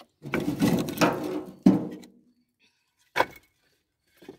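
Firewood logs clattering as they tumble onto a woodpile for about two seconds, ending in a sharp wooden knock, then one more knock of a log about three seconds in.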